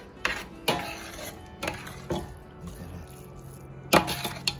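A metal spoon stirring thick kitchri in a large metal pot, knocking and scraping against the pot several times, loudest near the end.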